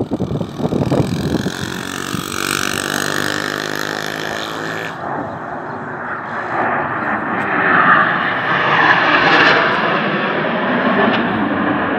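Formation of Turkish Stars NF-5 jets passing overhead, their jet noise carrying to the ground. For the first five seconds a low droning tone runs under the rushing noise. The sound then changes abruptly, and a rushing jet noise swells to its loudest around eight to nine and a half seconds in.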